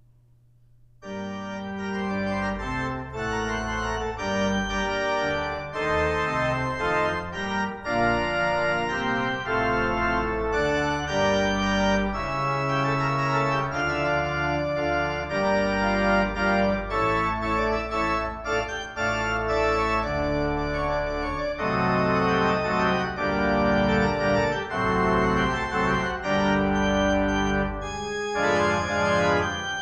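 Church organ begins about a second in and plays a slow piece of held chords over a deep bass line.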